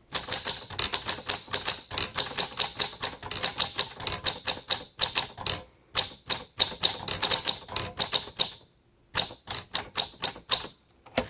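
1946 Smith Corona Silent manual typewriter being typed on at a quick, steady pace: a rapid run of light key clacks, slightly dampened as on the Silent model, with a short pause about eight and a half seconds in.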